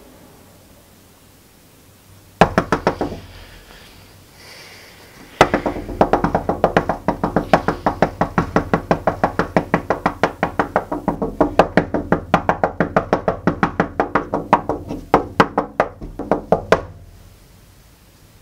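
Knocking on window glass: a short burst of taps a couple of seconds in, then a long run of quick, ringing taps, about four a second, for some eleven seconds before they stop.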